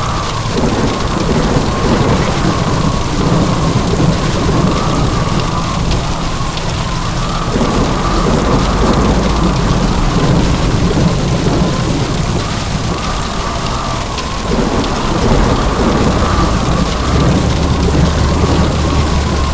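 Heavy rain pouring steadily, with low thunder rumbling throughout.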